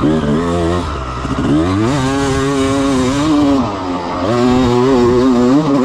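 Freshly rebuilt 1996 Honda CR250's two-stroke single-cylinder engine being ridden hard. It runs lower for the first second or so, then revs up sharply and holds, eases off briefly about four seconds in, and revs up again.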